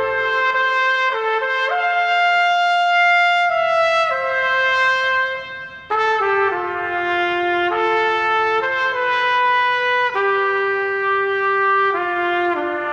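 A trumpet playing a slow, mournful melody in long held notes, with a brief break about six seconds in.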